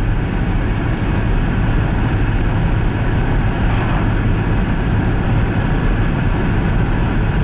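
Steady engine and road noise inside the cabin of a Lada Largus on the move, a low drone with a constant hum and no changes.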